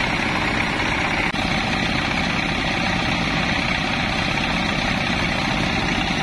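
Engine-driven rice threshing machine running steadily as bundles of harvested rice stalks are fed into its drum.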